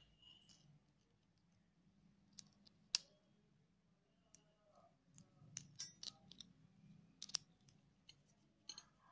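Faint, scattered clicks and small metallic taps from the parts of a tyre valve-cap LED light being fitted together by hand: button cells, contact plate and knurled metal cap. One sharp click comes about three seconds in, then a run of clicks in the second half.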